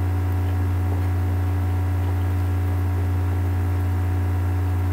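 Steady low hum with a light hiss, unchanging throughout; no other sound stands out above it.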